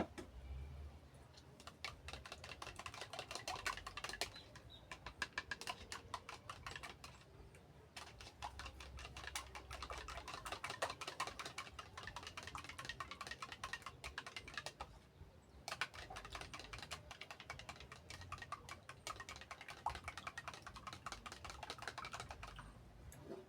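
Rapid, dense clicking and tapping in stretches of a few seconds, broken by short pauses.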